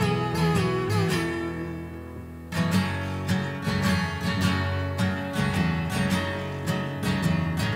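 Acoustic guitar strummed in a steady rhythm over an acoustic bass guitar line: an instrumental passage of a song. The playing thins out about two seconds in and comes back in full half a second later.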